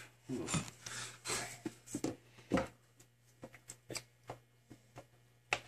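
Light clicks, taps and short scrapes of kitchen utensils and containers being handled at the stove, with one sharper knock about two and a half seconds in and a run of small ticks after it.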